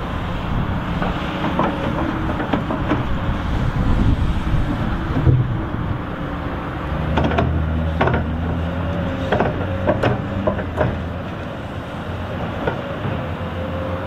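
Komatsu PC290 LC excavator's diesel engine running steadily as it digs, with a cluster of sharp knocks and scrapes in the middle from the steel bucket working through soil and stones.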